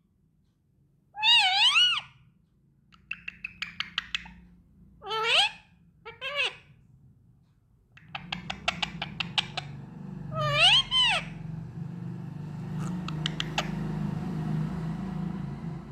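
A parrot gives four short warbling calls, each wavering quickly up and down in pitch, with runs of rapid clicks between them. About halfway through, a low steady hum comes in underneath.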